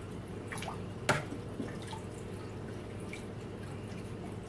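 Water draining from old canister-filter hoses and dripping into an aquarium: scattered plinking drops, the sharpest a little over a second in, over a steady low hum.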